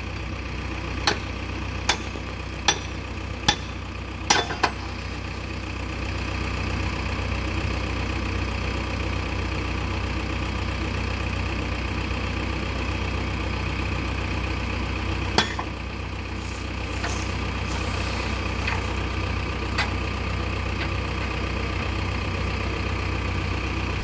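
Diesel engine of a JCB 3DX backhoe loader idling steadily, slightly louder from about six seconds in. Several sharp clanks come in the first five seconds and one more about fifteen seconds in.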